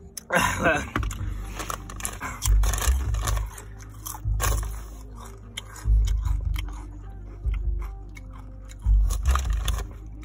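Spicy chips being crunched and chewed close to the microphone: repeated crunching bites, with low thumps in between.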